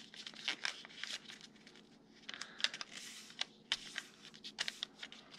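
Sheet of paper being folded and creased by hand into a paper airplane: irregular crinkles, short rustles and light crackles as the folds are pressed down.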